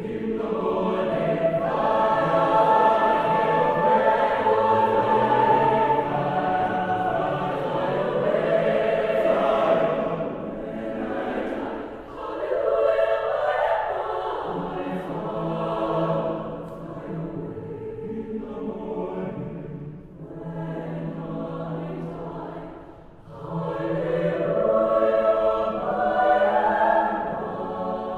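Mixed choir of men's and women's voices singing in sustained harmony, in long phrases that swell and fade, dipping briefly about twenty seconds in before rising again.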